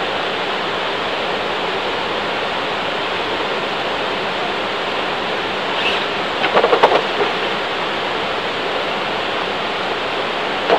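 Steady rush of a small waterfall cascading over rock, with a brief cluster of clicks and knocks about six and a half seconds in.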